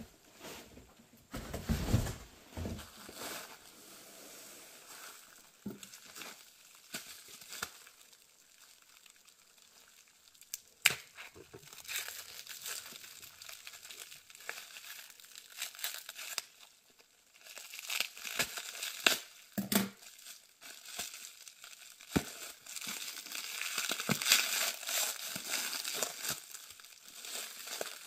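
Plastic stretch wrap around bundles of old books crinkling and tearing as the bundles are handled and unwrapped, in scattered crackles with a few sharp knocks. The crinkling becomes dense and continuous near the end as the wrap is pulled off a stack.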